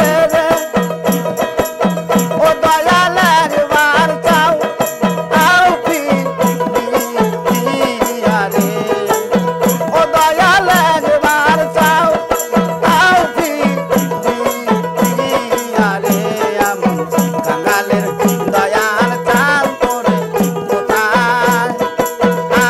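Bengali Baul jikir folk music: a small hand-held tambourine keeps a steady beat of about two strokes a second with rattling jingles, under a dotara melody and a held drone.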